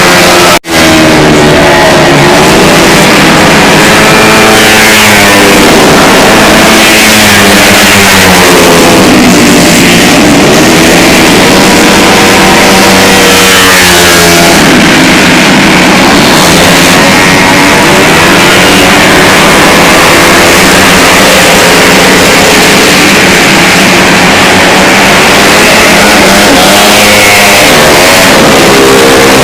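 Small scooter engine, close and loud, revving up and down over and over, its pitch rising and falling every few seconds.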